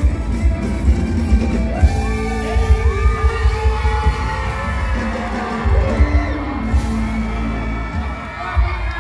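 Live concert music played loud over a PA, with a pulsing heavy bass beat and a singer's voice on top.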